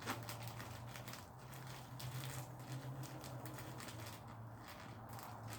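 Faint crinkling and rustling of gift packaging being handled and torn open, with scattered small crackles, over a low steady hum.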